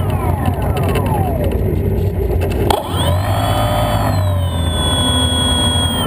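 Brushless electric motor and propeller of a Kyosho Spitfire 50 EP model plane (Scorpion 4020-10 turning an 11x10 APC prop), heard from inside the cockpit as it taxis: the whine falls as the throttle comes back, a click about two and a half seconds in, then the whine rises again and holds before easing off near the end. A steady low rumble runs underneath.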